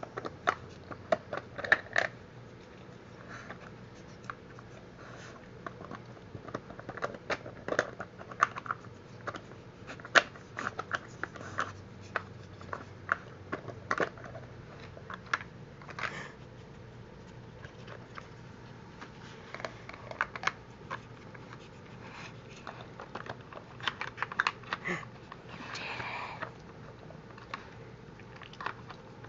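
Plastic dog puzzle toy clicking and clattering irregularly as a black Labrador's nose works its sliding lids and bone-shaped pegs to get at hidden treats. A short, noisier scraping stretch comes near the end.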